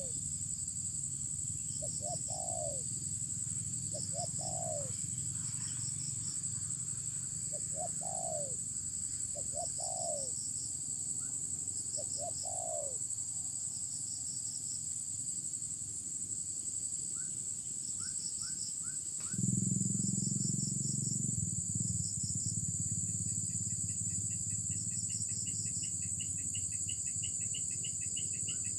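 Spotted doves cooing, a short falling coo phrase repeated about every two seconds in the first half, over a steady high whine and pulsed chirping from crickets or cicadas. About two-thirds in a low rumble sets in, and near the end a rapid, even chirping joins.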